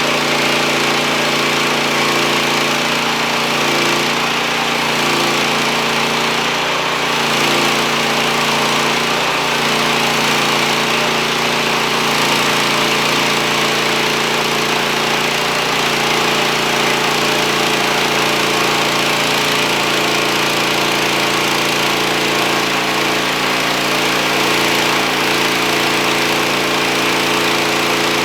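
Wood-Mizer LT40 portable band sawmill running steadily under power, its engine drone mixed with the hiss of the band blade.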